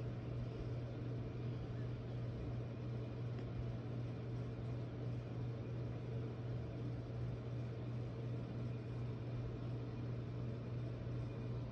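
A steady low hum with a faint hiss, even and unbroken throughout, like a machine running in the room.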